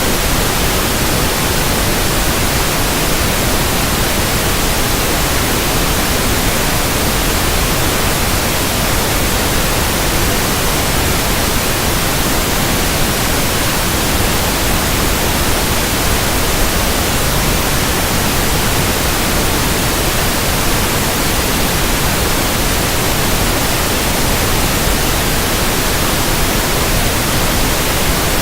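Pink noise test signal: a steady, even hiss spread across the whole range from deep lows to the top highs, played as a speaker test and diagnostic signal.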